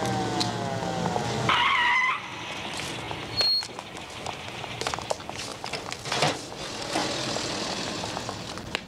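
Ambulance siren winding down in falling pitch and dying out about a second and a half in, followed at once by a brief loud high tone. After that comes the noise of a busy street, with scattered knocks and clicks as the ambulance's rear door is opened and a stretcher is unloaded.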